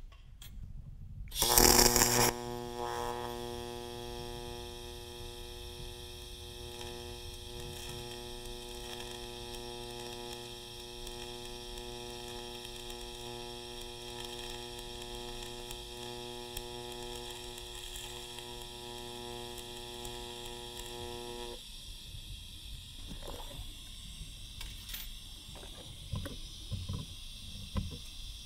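TIG welding arc on steel sheet metal, fed with a hand-held filler rod: a loud burst as the arc strikes about two seconds in, then a steady electric buzz with a hiss for about twenty seconds while the bead is run. The buzz cuts off abruptly when the arc is shut off, and a few light clicks follow.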